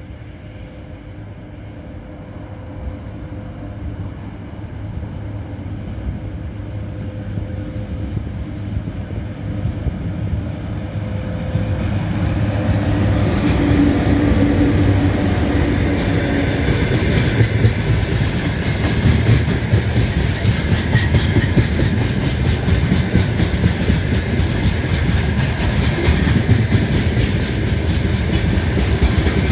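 Coal freight train hauled by a VL80S electric locomotive approaching and passing: it grows louder over the first half, with a steady hum, then the loaded wagons roll by with a continuous clickety-clack of wheels over the rail joints.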